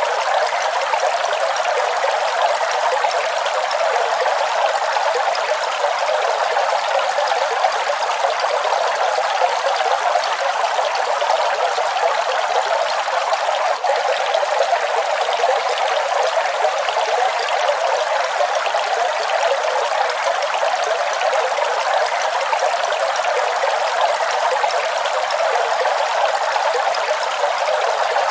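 Waterfall: a steady rush of falling water, hissy and without deep rumble, with one very brief dip about halfway through.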